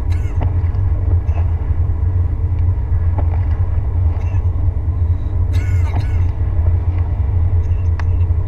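Steady low rumble of a car driving on a wet road, heard from inside the cabin. About six seconds in, the windshield wipers make a brief squeaking sweep across the glass.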